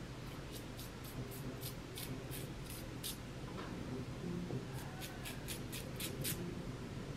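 Plastic tail comb drawn through long wig hair in short quick strokes, about four a second: a run of about a dozen strokes, a pause, then a second shorter run.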